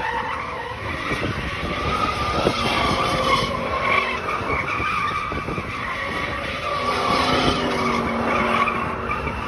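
Pickup truck doing a burnout in circles, its rear tyres squealing in a wavering high tone over the engine running hard.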